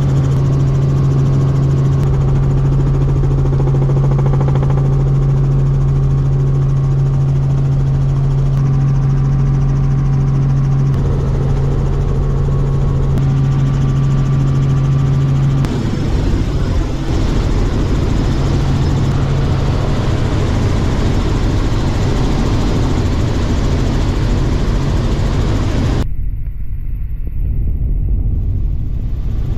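Helicopter in flight heard from inside the cabin: steady rotor and engine noise with a strong low hum, which turns rougher and less tonal about halfway through.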